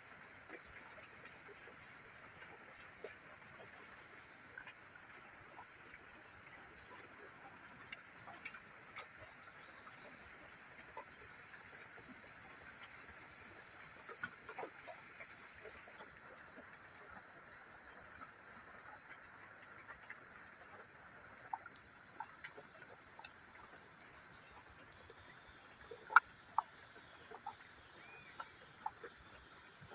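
A steady chorus of insects, crickets by the sound of it, with a constant high-pitched trill. A few faint clicks and knocks come through, and one sharper click about 26 seconds in.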